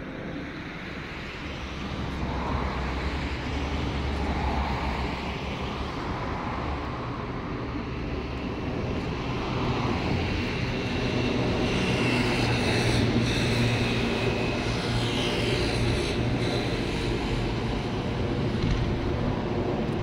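Engine and road noise of a passing vehicle, slowly growing louder and loudest a little past halfway, with shifting, gliding pitch.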